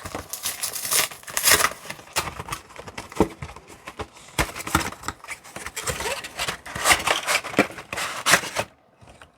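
A Pokémon trading-card box being opened by hand: irregular crinkling, tearing and scraping of its plastic wrap and cardboard packaging.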